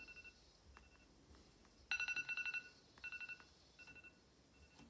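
iPad alarm going off: short groups of rapid high-pitched beeps, loudest about two seconds in, stopping near the end as the alarm is silenced.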